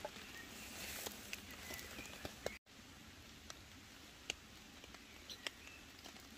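Faint outdoor background with scattered light clicks and taps of a knife cutting cooked meat on a wooden chopping board, then, after the sound drops out for a moment, a few soft ticks while the meat is chewed.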